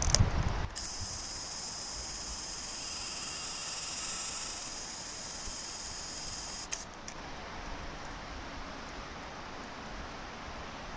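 Faint outdoor background noise, with a brief low rumble at the start. For about six seconds a steady high-pitched hiss sits over it, then cuts off abruptly, leaving a plain faint hiss.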